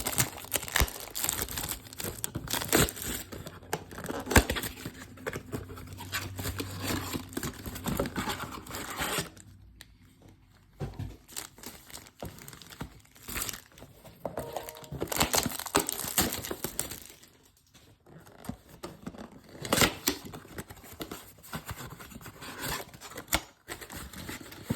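Trading-card blaster boxes and their packs being torn open by hand: repeated rips of cardboard and wrapper with plastic crinkling, broken by a couple of short pauses.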